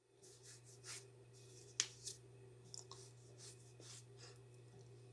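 Near silence: a low steady hum with a few faint, short clicks and taps.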